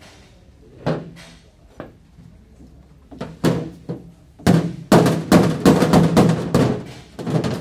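Claw hammer beating on the sheet-metal panel of a car door to knock out dents, each blow ringing briefly in the panel. A few separate blows, then a quick run of about a dozen from about halfway through.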